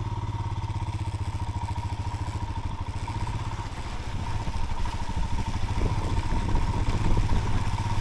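Royal Enfield motorcycle engine running under load as the bike rides into a rocky river crossing. It runs evenly at first, then from about halfway it grows louder and more uneven as the throttle is worked over the slippery rocks.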